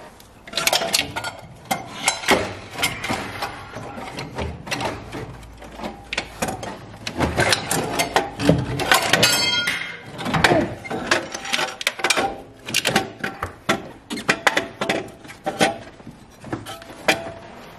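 Irregular metallic clunks, clinks and scraping as a turbocharger, still bolted to its cast-iron exhaust manifold, is wrestled out of the engine bay and knocks against the surrounding parts. A brighter metal scrape comes about nine seconds in.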